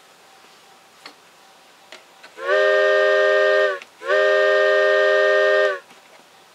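Simulated steam locomotive whistle from an MRC Sound Generator 8000 model-train sound unit: two blasts, a shorter one and then a longer one. Each blast sounds several notes at once like a chime whistle, sliding slightly up as it opens and down as it closes.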